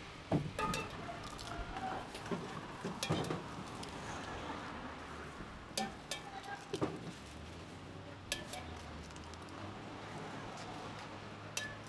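Eggs being cracked open one after another over a stainless steel mug: irregular sharp clinks and taps of shell against metal.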